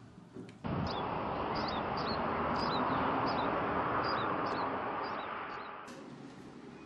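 Outdoor ambience: birds chirping in short repeated calls over a steady rushing background noise. It cuts in suddenly about half a second in and fades out near the end.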